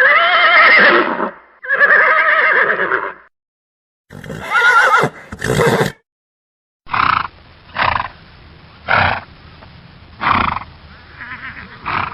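Horse whinnying: two long, wavering neighs one after the other, then a rougher call with a second short one, and near the end a series of short calls about a second apart.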